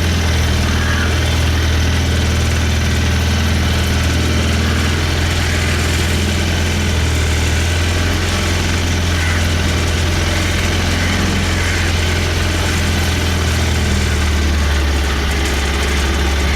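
A boat's inboard engine running with a steady low drone, its note shifting slightly near the end.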